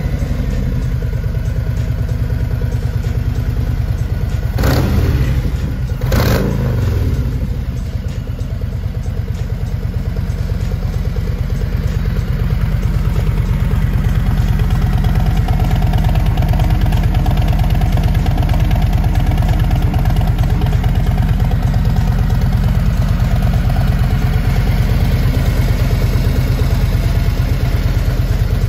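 Harley-Davidson motorcycle's V-twin engine idling, blipped twice about five and six seconds in, then settling back to a steady idle that grows slightly louder later on.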